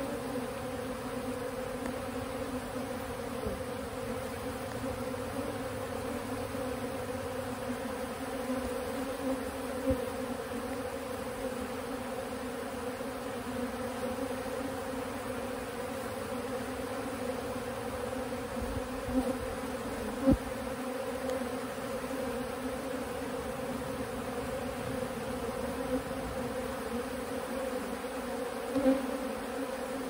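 A swarm of honeybees buzzing: a steady, dense hum of many wings, with a few brief knocks, the sharpest about two-thirds of the way through.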